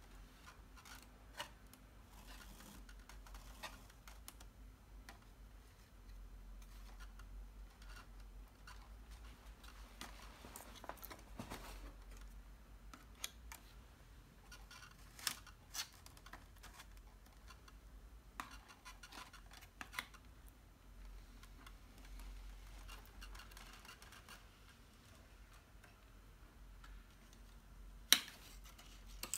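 Stiff card pages and pop-up pieces of a pop-up book being handled: faint scattered rustles and scrapes of paper with light clicks, and one sharper click near the end.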